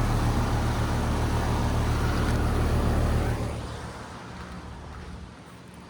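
A loud, steady low mechanical hum that fades away about three and a half seconds in.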